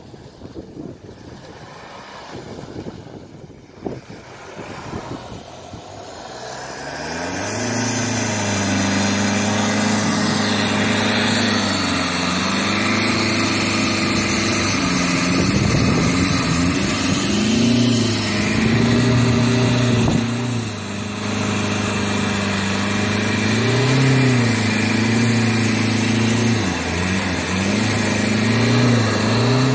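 Four-wheel-drive SUV engine revving hard in repeated surges as the vehicle churns through deep snow, coming in loud about seven seconds in after a quieter stretch of wind and light knocks.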